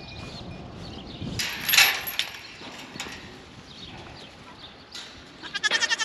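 A Nigerian Dwarf goat bleating near the end, one short wavering bleat. About two seconds in, a brief loud rustling noise.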